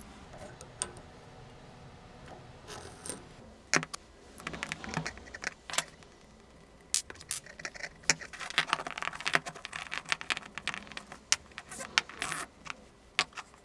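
Metal lathe parts clinking and scraping as the Myford ML7's cross-slide feedscrew, with its bracket and ball handle, is taken off and handled by hand. Irregular sharp metallic clicks and scrapes, starting about three seconds in and coming thickest in the second half.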